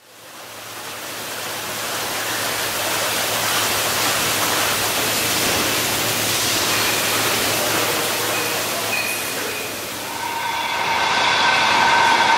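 Steady machinery noise from a concrete roof tile production line, fading in at the start over a low hum. Near the end, several steady whining tones join as the rail-mounted rack transfer car runs along its track.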